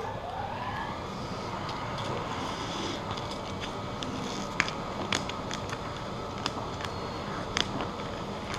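Clear transfer masking being peeled by hand off a vinyl racing stripe, with a few sharp crackling clicks in the second half, over steady background hum.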